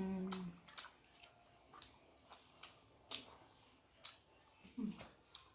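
Eating noises: scattered soft clicks and smacks of chewing momos, spaced about every half-second to a second, with a short murmur from a voice near the end.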